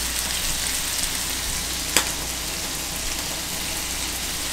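Shrimp, chicken and mixed vegetables sizzling in a wok over a gas burner, a steady frying hiss, with one sharp click about two seconds in.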